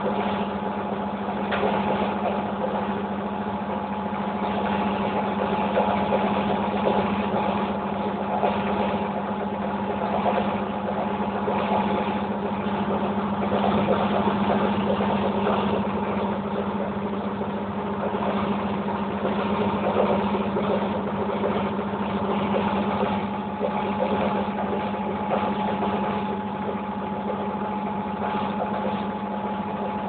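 Hoover Electra 1100F washing machine running with a steady mechanical hum, its drum motor holding an even speed with no rise or fall in pitch.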